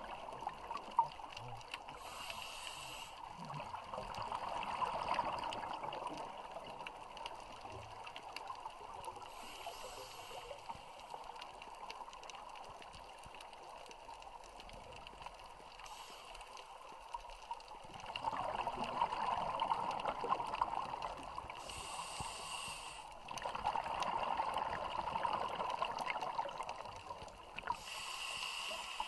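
Underwater sound of a scuba diver breathing through a regulator: a short hiss on each inhale, five times, about every six seconds. Each hiss is followed by a longer burble of exhaled bubbles.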